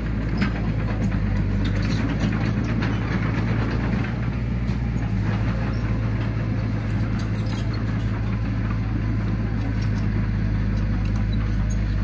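Heavy machinery's diesel engine running steadily, with scattered clanks and rattles over it.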